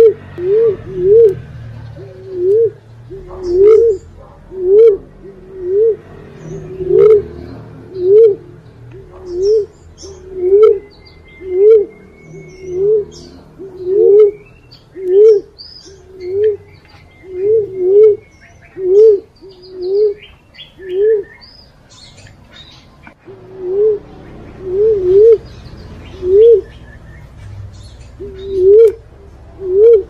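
Recorded lure call of the punai walik fruit dove: a short coo that rises and falls in pitch, repeated about once a second, with a break of about two seconds two-thirds of the way through. Faint chirps and whistles of other birds sound behind it.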